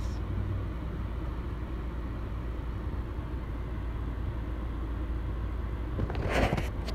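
Car heard from inside the cabin: a steady low engine and road rumble. About six seconds in comes a short, louder noise.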